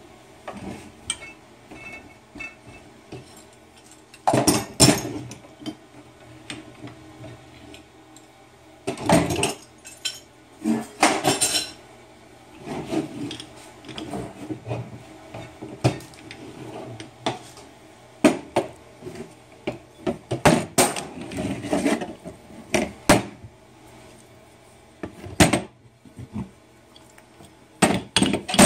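Aluminium Do-it frog-lure mold blocks and metal C-clamps clanking, knocking and scraping as the clamps come off and the mold halves are set down, slid together and pulled apart on a table: irregular sharp knocks and short metal scrapes.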